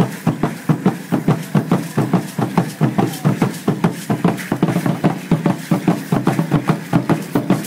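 Aztec dance drumming: a drum beaten in a fast, even rhythm of about four beats a second, with the dancers' ankle rattles shaking on each step.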